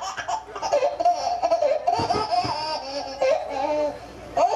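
Loud, high-pitched hearty laughter in repeated bursts.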